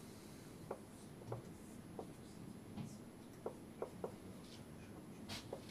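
Felt-tip marker writing and drawing: about eight faint short strokes, irregularly spaced.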